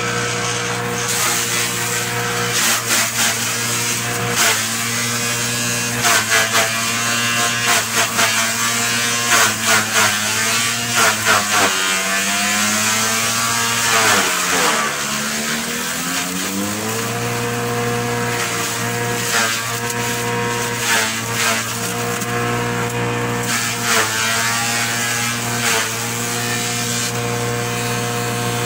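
Electric forage chopper running steadily while bundles of green grass stalks are fed into it, with repeated chopping bursts as the blades cut. About twelve seconds in, the motor slows under the load for a few seconds, then picks back up to speed.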